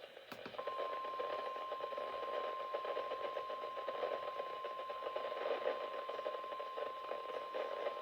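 Emergency alert attention tone: a single steady beep near 1 kHz, the 1050 Hz warning alarm tone of NOAA Weather Radio, starting about half a second in over a constant radio static hiss, with a short click just before it.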